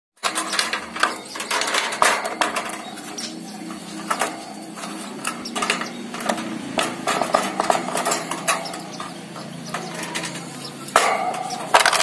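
Wire bird cage being handled, its bars and base clattering and clinking in irregular knocks, with a cluster of louder knocks near the end, over a steady low hum.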